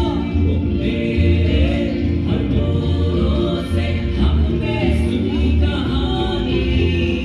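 Light-and-sound-show soundtrack played over loudspeakers: choral singing with held and sliding notes over a steady pulsing low beat.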